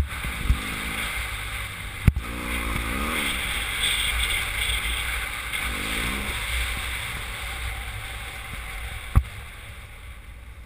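Motorcycle riding on a gravel dirt track, heard at the rider's helmet: steady rumble and wind rush, with the engine note rising and falling a few times. Two sharp knocks, about two seconds in and near the end, and the sound eases off near the end as the bike slows.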